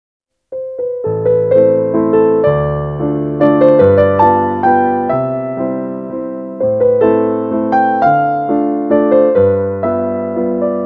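Background piano music that starts about half a second in, with notes struck at an even pace, each one fading away.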